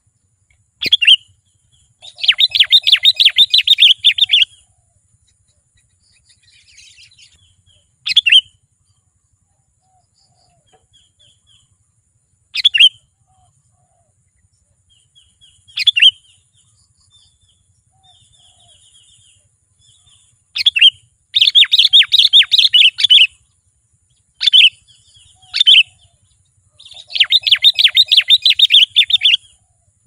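Sooty-headed bulbul (kutilang) calling loudly: single sharp chirps every few seconds, and three longer runs of fast chattering notes, near the start, about two-thirds in and near the end. Fainter chirps come in between.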